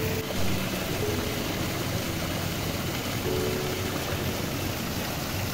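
Small artificial fountain splashing steadily into a fish pond: an even rush of falling water, with a few faint held tones behind it.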